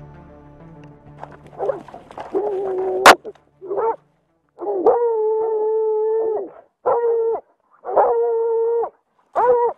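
A hound baying at a bear held at bay, close to the microphone: a run of long, drawn-out howling bays, each held steady for up to about two seconds. A single sharp knock comes about three seconds in.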